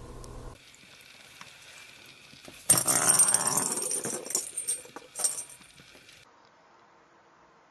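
Kitten hissing: a long, loud hiss starting about three seconds in, then a shorter one about two seconds later. It is a defensive hiss at another kitten.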